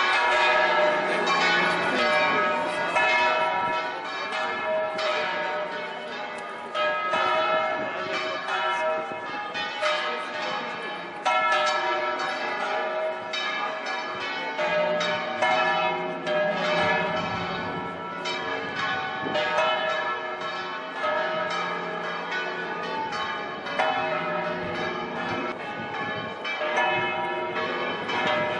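Church tower bells swung in full rotation, several bells pealing together in a continuous festive peal of overlapping clangs.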